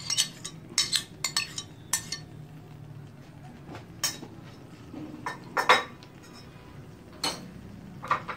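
A metal spoon clinking and tapping against a plate and the clay tagine as chopped garlic is knocked off into it: a quick run of sharp clinks in the first two seconds, then single clinks spread out, the loudest a little past halfway. A faint low hum runs underneath.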